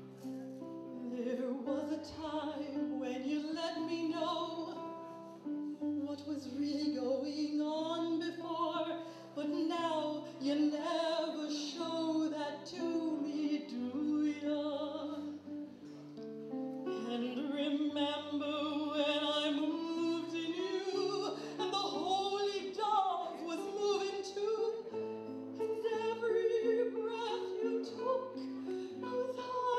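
A singer performing a song with instrumental accompaniment: a sung melody with long held notes over a steady low bass line.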